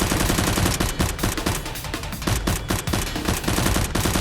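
Rapid bursts of automatic gunfire sound effects, shot after shot in quick succession.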